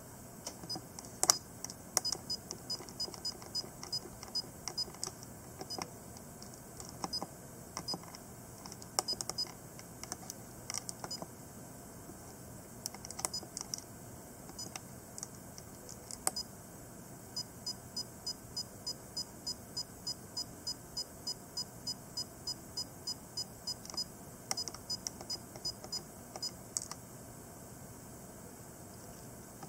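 Fujifilm FinePix compact digital camera beeping at each button press while its date and time are set, with small clicks of the buttons. Scattered single beeps come first, then a long even run of beeps about four a second as the minutes are stepped up.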